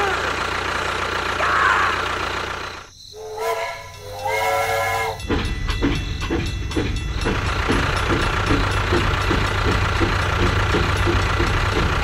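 A steady engine hum gives way to a toy steam locomotive's whistle tooting twice, a few seconds in, followed by an even, repeating chugging.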